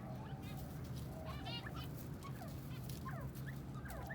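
Captive teetar (francolins) calling, with short chirps and a quick run of rising notes about a second and a half in. Sliding calls follow near the end, over scattered short clicks and a steady low hum.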